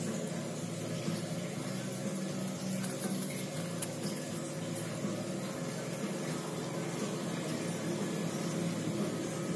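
Ultrasonic mist maker running submerged in a tub of water, agitating the surface into a steady bubbling water noise as it makes fog.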